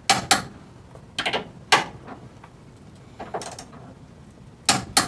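Ratcheting torque wrench on a sway-bar bushing bracket bolt, its head giving sharp clicks, mostly in pairs, every second or so as the bolt is tightened to torque.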